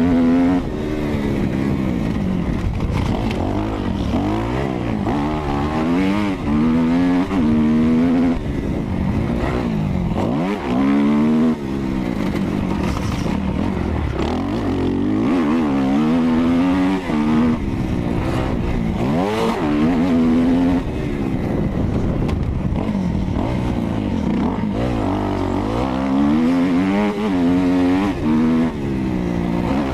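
Kawasaki KX250F four-stroke single-cylinder motocross engine being ridden hard: it revs up, drops off briefly and climbs again over and over as the rider accelerates through the gears, shuts off and gets back on the throttle.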